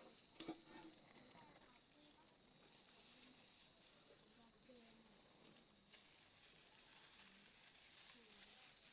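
Faint, steady high-pitched chirring of crickets, with a single click about half a second in.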